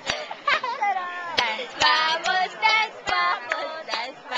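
A child singing in a high voice, the melody bending up and down, with a few sharp clicks here and there.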